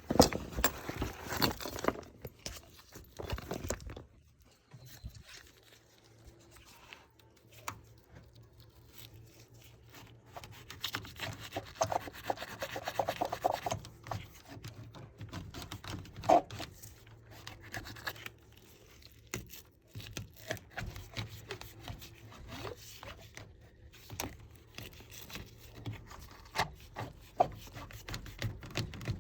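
A brush scrubbing and scraping in irregular strokes, with occasional sharp knocks, while cleaning out the grime of an unmaintained air handler. A faint steady low hum sits underneath.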